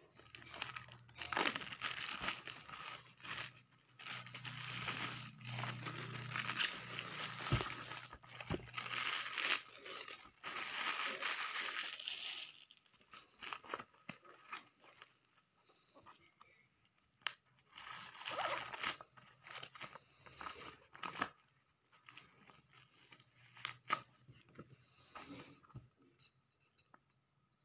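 Clear plastic wrapping on books crinkling and rustling as it is handled. The crinkling is dense for the first dozen seconds, then thins to scattered rustles and light taps.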